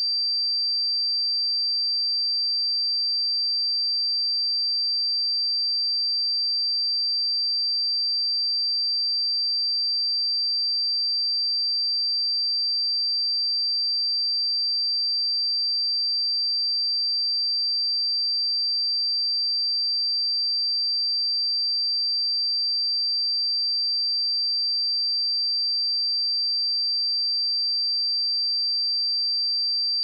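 A pure 4692 Hz sine-wave test tone: one steady, unchanging high-pitched tone, used to check speakers and headphones.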